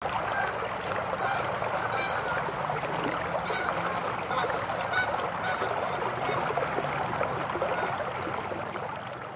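A flock of many birds calling at once, a dense chorus of overlapping calls that fades slightly near the end.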